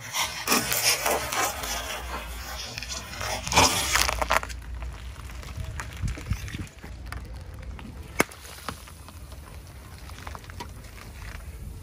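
Car tyre crushing jelly-filled plastic balls on concrete: dense crackling and popping for about four seconds, with the loudest burst just before the four-second mark, then fainter scattered clicks over a low rumble.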